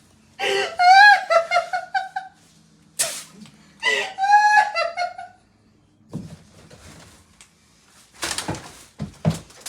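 A person laughing in high-pitched bursts, about half a second in and again about four seconds in, with shorter breathy bursts near the end.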